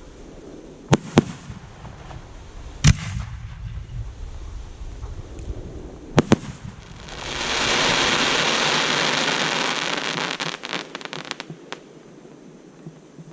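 Fireworks going off: a handful of sharp bangs, two of them in quick pairs, then about seven seconds in a loud hiss swells up and holds for several seconds, breaking into rapid crackling before it fades away.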